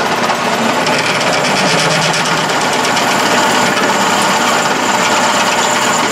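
Atlas Craftsman 12-inch metal lathe running while a 3/4-inch twist drill in the tailstock cuts into a metal workpiece, with the drill chuck slipping and spinning in the tailstock quill. The cutting noise picks up about a second in.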